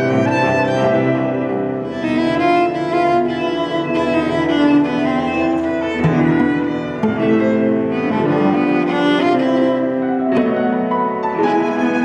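Piano trio of violin, cello and piano playing an arrangement of a 20th-century Argentine dance piece, the instruments moving through changing notes together.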